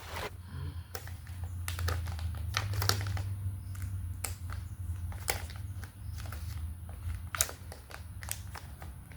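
Packaging crinkling and rustling in a series of irregular crackles and clicks as a small freebie pack is opened by hand, over a low steady hum.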